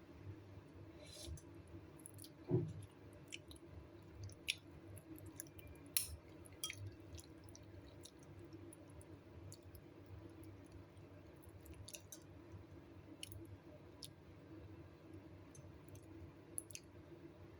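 Eating soup: scattered small clicks and taps of a spoon and bowl, with one louder knock about two and a half seconds in, over a low steady hum.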